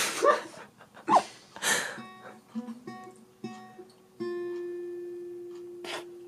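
Acoustic guitar played in a small room: a few loud strums first, then single picked notes stepping in pitch, ending on one long note that rings out and slowly fades.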